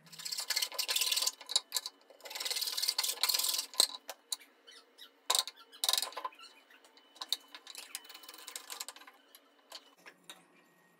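Wood chisel paring and scraping pine to clean out a notch: long scraping strokes in the first few seconds, one sharp knock near four seconds, then shorter scrapes and small clicks of chips.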